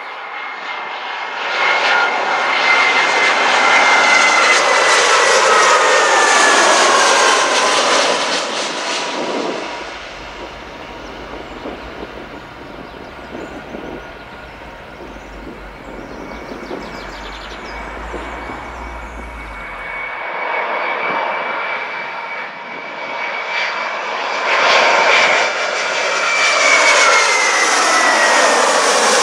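Airbus A320 jet airliner on final approach passing low overhead: jet engine noise with a high whine that drops in pitch as the aircraft goes by, heard twice, with quieter, more distant engine noise in between.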